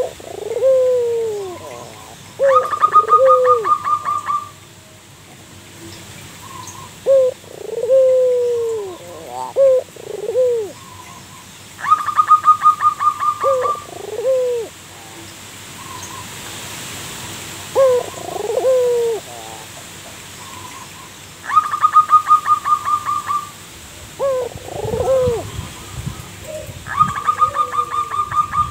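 Zebra dove (perkutut) singing: repeated phrases of falling coos, alternating with fast rattling runs of quick repeated higher notes, a new phrase every few seconds.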